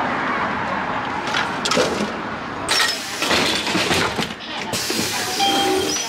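Street ambience: a steady wash of traffic noise with background voices, and a few louder rushing bursts in the second half.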